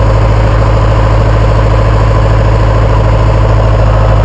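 Tractor engine idling steadily, loud and close.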